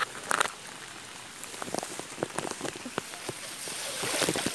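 Steady rain falling on water, with scattered individual drops ticking sharply close by; the rain noise swells briefly near the end.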